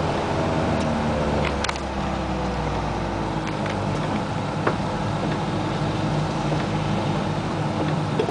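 1988 Isuzu Trooper's engine heard from inside the cabin, its note falling over the first few seconds as the truck slows, then running steadily, over the hiss of tyres on wet road. A single sharp click sounds a little past halfway.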